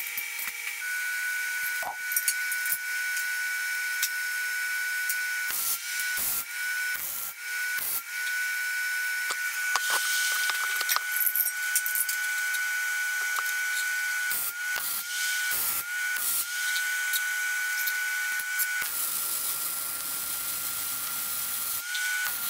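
Millermatic 211 MIG welder tack-welding steel suspension mounts onto a truck frame: a steady crackling hiss that stops briefly again and again as the trigger is let off between tacks.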